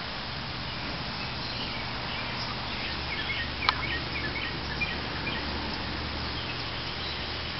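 Steady low hum and hiss with a few faint, short, high chirps scattered through the middle, and a single sharp click near the middle.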